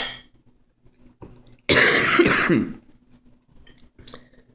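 A woman coughs once, a harsh cough lasting about a second, about two seconds in.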